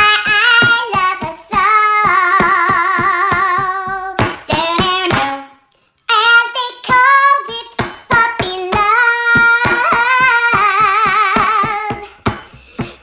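A high-pitched, squeaky dog-puppet voice sings a slow pop love song with a wavering vibrato over a backing track with a steady beat. The music breaks off briefly about five and a half seconds in, then carries on.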